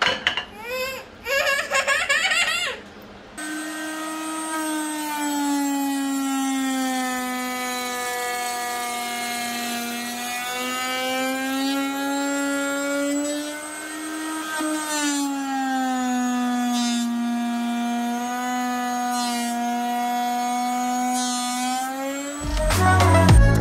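A child talking and giggling briefly, then a router in a router table running with a round-over bit as wooden speaker-box edges are rounded over: a steady high whine whose pitch sags and recovers slowly as the bit takes load. Music with a heavy beat comes in near the end.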